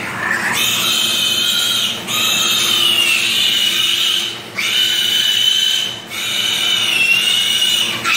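Piglet squealing loudly while held and restrained for an injection: a string of long, high-pitched squeals, each one to two seconds, with brief gaps for breath between them.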